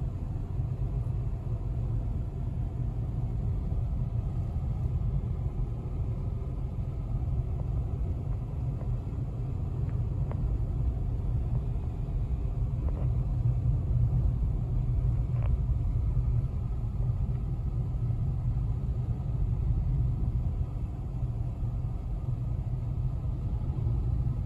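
Steady low rumble of engine and tyre noise inside a Nissan Magnite's cabin as it drives along at an even pace.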